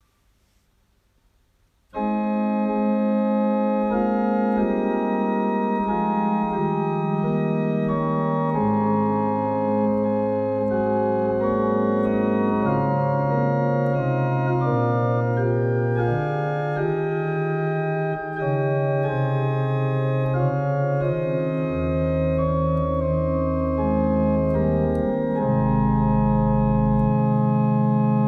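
Organ playing slow, held chords over a bass line that moves step by step. The music starts about two seconds in, and deep pedal notes come in near the end.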